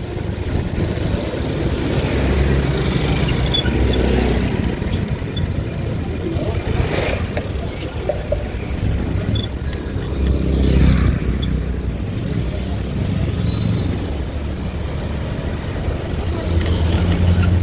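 Slow-moving town road traffic heard from among the vehicles: a steady low rumble of car engines running, swelling twice in the middle as vehicles pass close.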